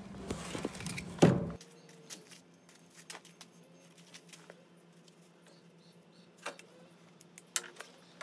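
A single sharp knock about a second in, among light handling sounds, then near silence broken by a few faint clicks.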